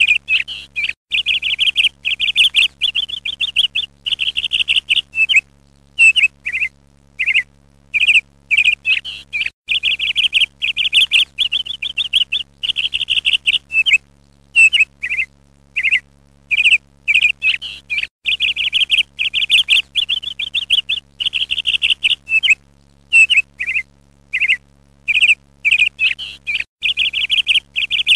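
Bird chirping in quick, high trills broken by short pauses, the same sequence repeating about every eight seconds like a looped background recording, over a faint steady low hum.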